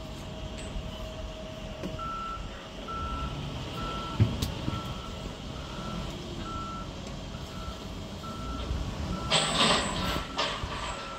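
Wheel loader's reversing alarm beeping, about one and a half beeps a second, starting about two seconds in, over the loaders' diesel engines running. A louder rushing burst of noise comes shortly before the end.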